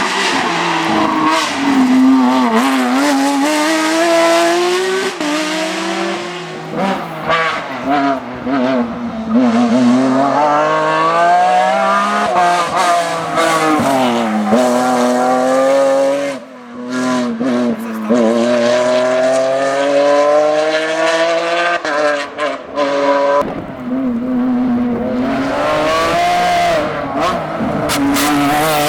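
Porsche 911 GT3 rally car's flat-six engine driven hard, revving up and dropping back over and over as it runs through the gears and lifts for corners.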